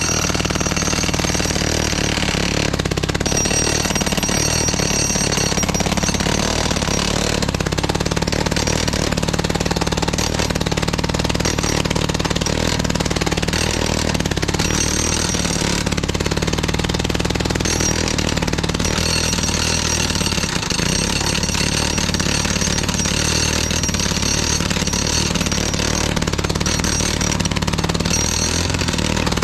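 Pionjar 120 gas-powered two-stroke breaker running and hammering continuously into a concrete slab: the engine and the rapid pounding of the bit blend into one steady racket, which changes briefly a few times.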